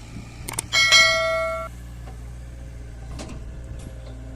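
A single loud metallic ring, like a struck bell, about a second in that cuts off suddenly, over the steady low drone of an idling diesel engine.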